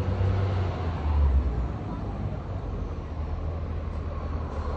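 Low, steady outdoor rumble, strongest in the first second and a half and then even.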